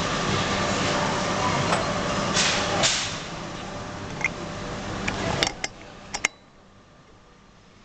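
Steady hum of workshop machinery, with short sharp metal clicks and knocks as a steel plunger is fitted into a hand pallet truck's hydraulic pump cylinder. Just after a last pair of clicks, about six seconds in, the hum stops and it goes much quieter.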